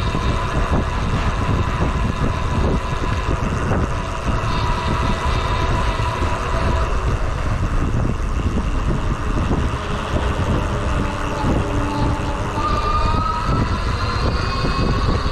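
Riding noise from a RadRunner e-bike: steady wind and road rumble with small knocks, and a thin whine from the geared hub motor that rises in pitch about twelve seconds in.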